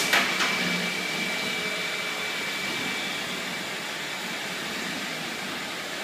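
Sammic SL1200BP hood-type commercial dishwasher running its automatic wash cycle: the wash pump spraying water inside the closed hood, a steady rushing noise with a faint high whine over the first few seconds.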